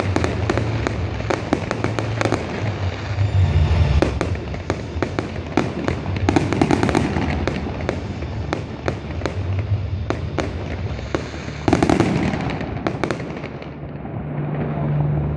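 Fireworks display: aerial shells bursting in quick succession with many sharp bangs and crackles, and a louder cluster of bangs about twelve seconds in.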